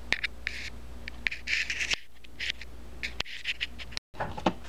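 Handling noise: a run of short clicks and scratchy scrapes and rustles over a low steady hum, broken by a brief cut to silence about four seconds in.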